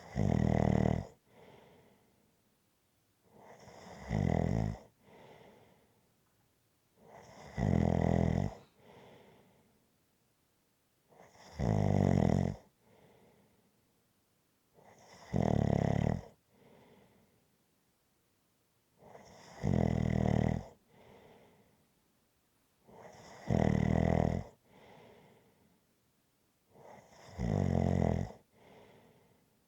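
A person snoring in a steady rhythm: a loud snore about every four seconds, eight in all, each followed by a short, softer breath.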